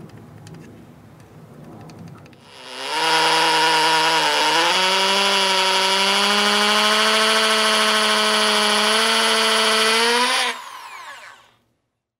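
Electric hammer drill boring into a stucco wall. Its motor whine starts about two and a half seconds in, steps up in pitch a couple of seconds later and runs steadily, then stops and winds down near the end.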